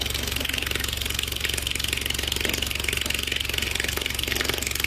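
A subwoofer driven by a very low test tone, buzzing and rattling steadily with a fast, even pulsing. A stream of water from a hose falls against the speaker, adding a hiss.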